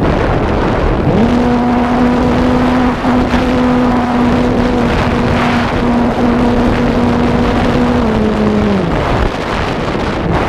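Strong wind buffeting the microphone, with a steady motor hum that spins up about a second in, holds one pitch, dips slightly near eight seconds and winds down about a second later.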